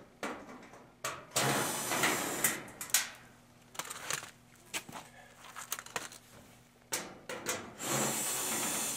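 Sheet-metal panels of a clothes dryer scraping and rattling as they are worked loose and handled with gloved hands, with scattered knocks and clicks. There are two longer stretches of scraping, about a second and a half in and again near the end.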